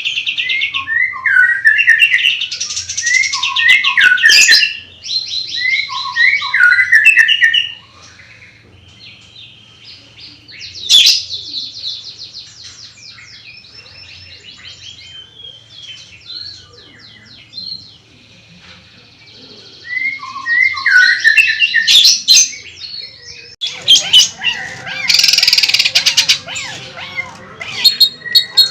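Songbirds singing energetically: fast trills and rapid runs of short falling notes, fading to soft twittering for several seconds in the middle, with one sharp loud call, before bursting into dense, loud song again near the end.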